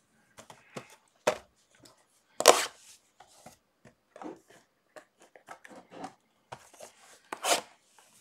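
Trading card packs and cards being opened and handled: a string of small taps and rustles, with sharper noises about one and two and a half seconds in and a loud one near the end.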